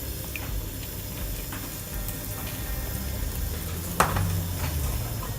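Cream and milk heating in a saucepan with a steady faint hiss while hot chocolate powder is stirred in, and one sharp tap about four seconds in.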